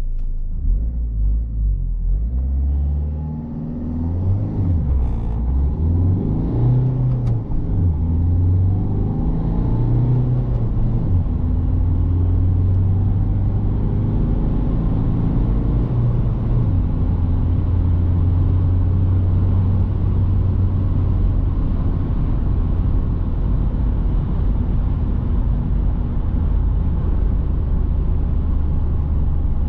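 Citroen C3 Picasso's 1.6 HDi four-cylinder turbodiesel accelerating hard through the gears of its five-speed manual. The revs climb and fall back several times as it shifts up, then hold a steady drone from about ten seconds in.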